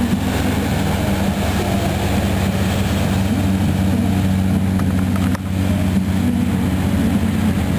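Boat engines running with a steady, unchanging low drone, heard over a hiss of wind and water.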